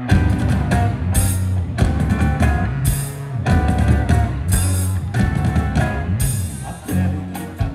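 A live band playing, with electric guitars, bass, keyboard and a drum kit keeping a steady beat. The music comes in abruptly at the start.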